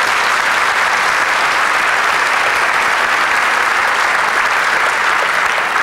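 A large audience applauding, a dense steady clapping that holds at one level throughout.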